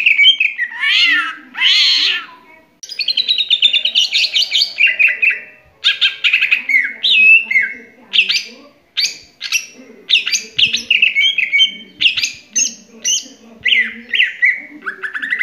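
Green leafbird (cucak ijo) singing a long, varied song: whistled notes that slide up and down in pitch, fast chattering trills and short phrases, with only brief pauses. This is the full, continuous singing that keepers call gacor.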